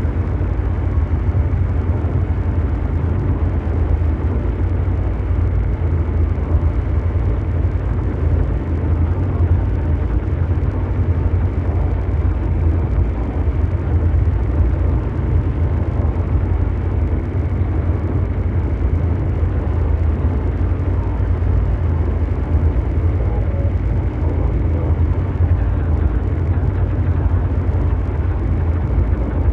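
Continuous mechanical drone noise: a steady, unchanging rumble heavy in the deep bass, with a fainter hiss above it, like a huge engine running without pause.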